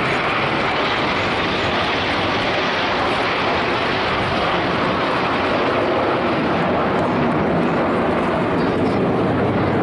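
A formation of BAE Hawk T1 jets, each powered by a single Rolls-Royce Turbomeca Adour turbofan, flying past: a loud, steady jet rush.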